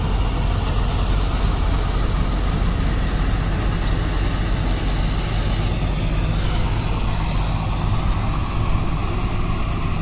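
Balkar combine harvester at full working speed as it cuts wheat: a steady engine drone with the low rumble of its machinery, holding an even level throughout.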